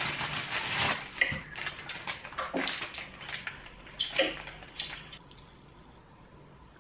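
Packaging rustling and small handling clicks as a pair of sunglasses is unwrapped, with a few short laughs. The handling stops about five seconds in.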